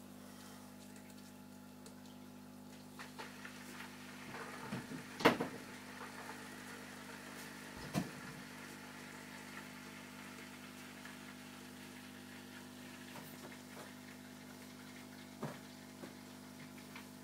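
A steady low mechanical hum with a few sharp knocks over it: one loud knock about five seconds in, a weaker one near eight seconds and a faint one near fifteen seconds.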